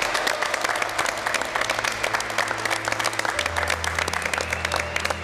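A small group applauding with steady, rapid hand claps, over background music whose low note changes about three and a half seconds in.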